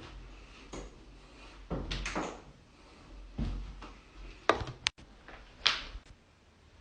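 Joints cracking with sudden sharp pops, the two loudest about four and a half and five and a half seconds in, with softer, longer noises earlier.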